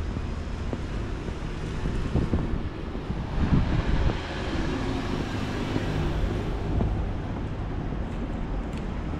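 A vehicle passing on a street, growing louder to a peak a few seconds in and fading over the next few seconds, over a steady low rumble and wind on the microphone.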